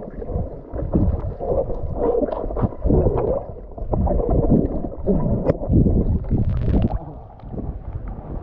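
Muffled underwater sound of a swimmer moving through water: low rumbling and gurgling with short bubbly pitch sweeps. A brief splashy hiss comes near the end as the camera comes up to the surface.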